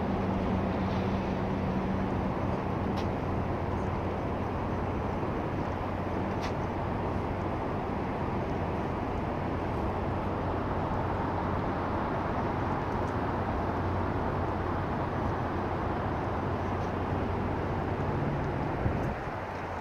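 Steady rumble of distant freeway traffic with a low engine hum underneath, dropping abruptly in level just before the end.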